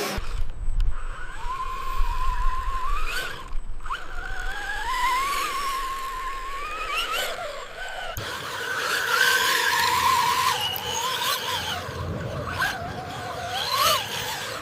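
Whine of a radio-controlled construction model's electric drive, its pitch gliding up and down, over a low rumble.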